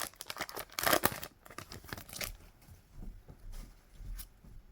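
Foil Pokémon booster pack wrapper being torn open, a loud crinkling tear in the first second or so, then fainter rustling and handling.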